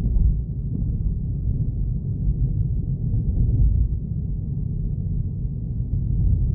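Steady low rumble of a car's road and engine noise, heard from inside the cabin while driving slowly.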